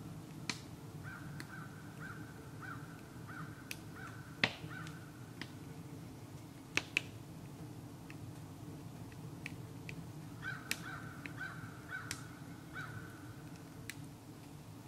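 Wood fire in a small sap-boiling stove crackling, with scattered sharp snaps and pops over a steady low rumble. A bird calls in two runs of quick repeated notes, about three a second, starting about a second in and again about ten seconds in.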